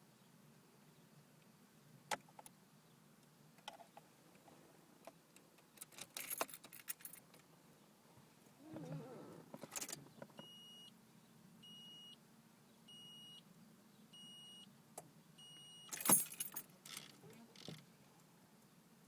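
Keys jangling on a key ring while the car key is handled, with a few light clicks. In the middle, an electronic warning chime from the 1995 Nissan 200SX SE-R beeps five times about a second apart. Near the end the keys jangle loudly again, and no cranking or engine sound follows.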